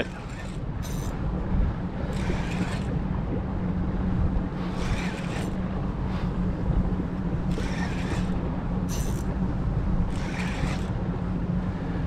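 A boat's motor running with a steady low hum, broken every second or two by short bursts of hiss.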